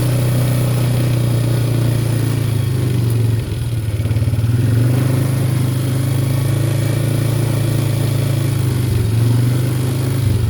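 ATV engine running steadily under load as the quad pushes through thick brush, easing off briefly about three and a half seconds in and again near nine seconds.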